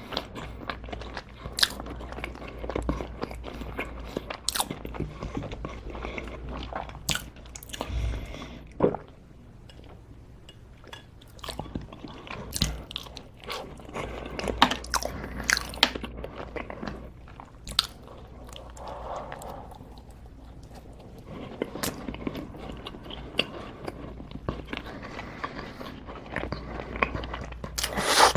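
A person biting and chewing crunchy food close to the microphone, with sharp, irregular crunches and a couple of brief quieter pauses between bites.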